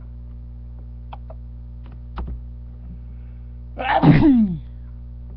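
A man's loud sneeze about four seconds in: a short burst of noise that ends in a falling voiced tail, over a steady electrical hum.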